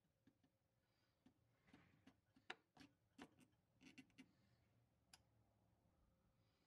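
Near silence, broken by a scattering of faint, sharp metal clicks: small steel parts of a shotgun's trigger guard assembly, a pin bushing and punch, being worked by hand. The loudest click comes about two and a half seconds in.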